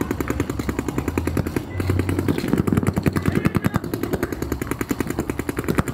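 Paintball markers firing in rapid, continuous streams, about ten or more shots a second.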